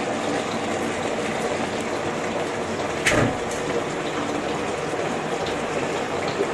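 A big pot of chopped saag greens (spinach and bathua) sizzling and hissing as it steams in its own juices with no water added. A single sharp click about three seconds in.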